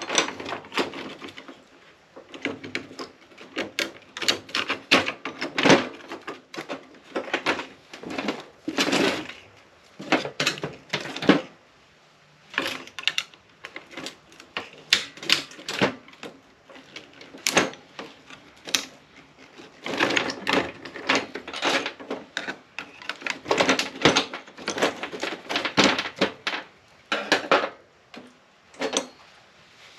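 Irregular sharp clicks, snaps and light metal clatter of hand cutters and pliers working on the internals of an APC battery backup unit, nipping a part loose at its base.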